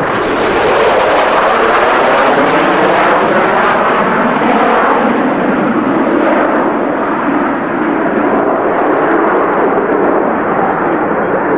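A B-1B Lancer's four F101 jet engines roar loudly as the bomber makes a fast pass and climbs away. The roar swells in just at the start and holds, with a slowly shifting, phasing quality as the aircraft moves across the sky.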